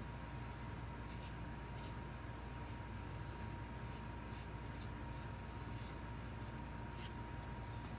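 Faint, scattered scratchy rustles of fingers rubbing and pressing a piece of EVA foam to bend it into a curve, over a steady low hum and a thin steady whine.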